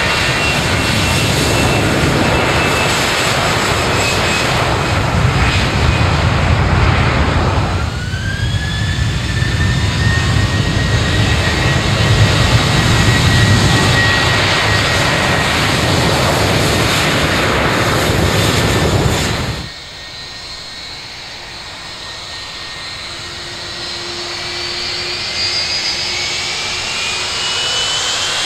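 Jet airliner engines at takeoff power, in three edited shots. First an Airbus A321's steady, loud jet noise with a deep rumble on its takeoff roll. From about eight seconds in, a Boeing 737's engines spool up with a whine that rises and then holds over the noise. A sudden cut about twenty seconds in drops to a quieter shot in which a Rolls-Royce-engined Boeing 757's engines begin spooling up, their whines rising near the end.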